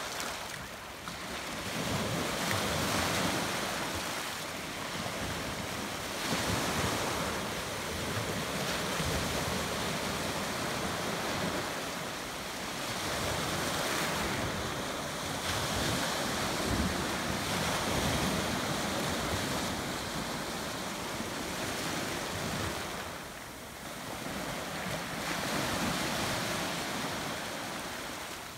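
Small saltwater waves breaking and washing over a rocky shoreline, the rush swelling and easing every few seconds.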